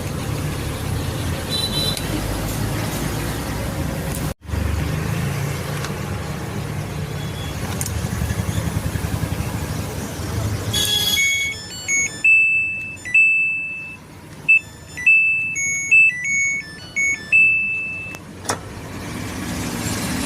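A steady low rumble, broken by a brief dropout about four seconds in. Then a Samsung washing machine's control-board buzzer plays a short electronic tune of high beeps at a few different pitches and lengths.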